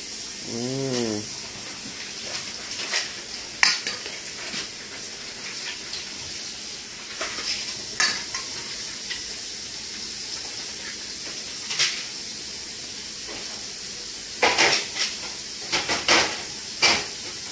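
Metal fork clinking and scraping in a stainless steel bowl as spaghetti is twirled and eaten: a few sharp clicks spread out, then a quick cluster of clinks near the end, over a steady hiss. A voice gives a brief rising-and-falling hum about a second in.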